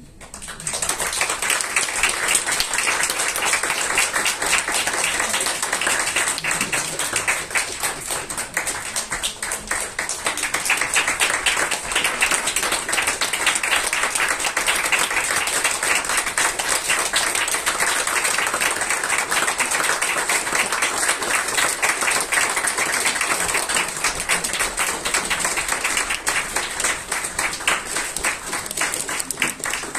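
Audience applauding: dense, steady clapping, loud, beginning right after the performance's closing word.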